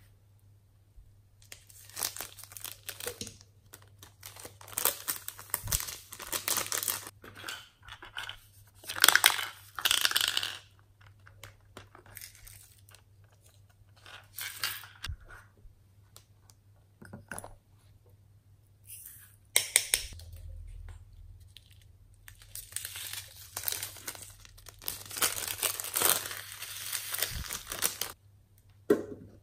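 Glitter and sprinkles poured and shaken from a plastic bottle onto slime in a glass dish: gritty, crinkly rustling in two long runs of bursts with quieter gaps between them.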